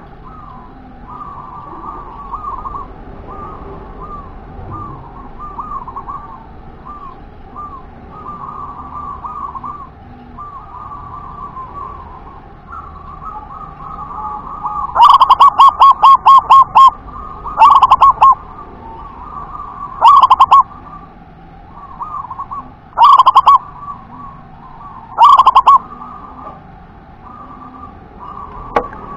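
Zebra dove (perkutut) cooing: soft, quick repeated coos through the first half, then about halfway a loud fast run of staccato coos, followed by four more short loud phrases a couple of seconds apart.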